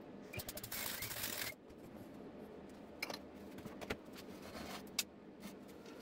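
Bench handling of small metal parts: a brief scraping rattle about a second in, then a few sharp metallic clicks and taps as a thin metal piece is set and clamped in a small machine vise.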